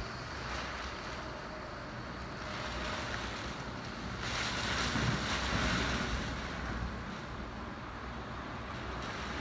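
Gusty typhoon wind blowing, a steady rushing noise with wind buffeting the microphone, swelling for a couple of seconds in the middle.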